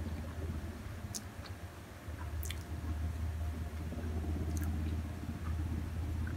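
Close-up chewing of a mouthful of instant noodles, with soft wet squishing and a few sharp mouth clicks, over a steady low hum.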